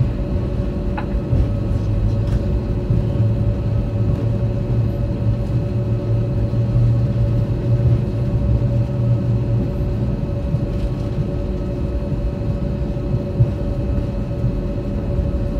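Airbus A320 cabin noise while taxiing: a steady low rumble with a constant whine, the jet engines at idle and the airframe rolling over the taxiway, with an occasional light knock.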